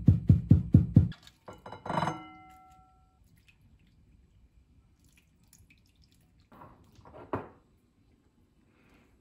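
Glass jars being filled with pickled slaw: a quick run of about six dull knocks in the first second, then a glass clink that rings on briefly about two seconds in. Near seven seconds comes a short splash of liquid ending in a knock.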